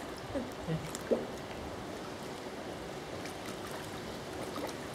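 Swimming-pool water lapping and sloshing steadily around people standing in it, with a couple of short voice sounds in the first second or so.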